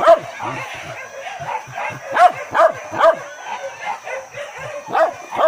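Hunting dogs in a wild boar hunt, barking and yelping in short repeated calls, with a cluster of barks about two to three seconds in and more near the end.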